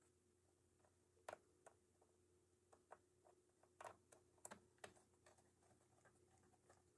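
Faint, irregular small clicks and ticks of a screwdriver and the laptop's plastic case as the bottom-panel screws are driven back in.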